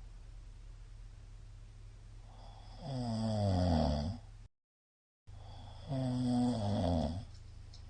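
A middle-aged man snoring in his sleep: two long snores about three seconds apart, each falling in pitch, with a steady low hum in the quiet between them. Between the two snores the sound cuts out completely for under a second.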